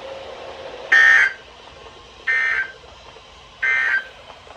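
Emergency Alert System end-of-message tones: three short, identical bursts of SAME digital data, each under half a second long and about a second apart, signalling that the warning broadcast is over.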